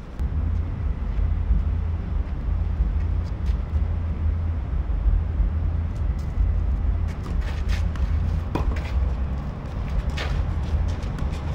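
Low, uneven rumble of wind buffeting an outdoor camera microphone, with a few faint sharp knocks in the second half.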